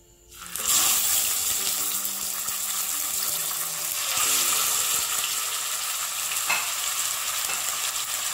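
Masala-coated karimeen (pearl spot fish) sizzling as they are laid into hot coconut oil in a nonstick pan for shallow frying. The sizzle starts suddenly about half a second in and swells again as the second fish goes in, around four seconds in.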